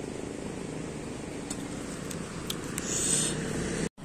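Steady low rumble of an engine running nearby, with a brief hiss about three seconds in; the sound cuts off abruptly just before the end.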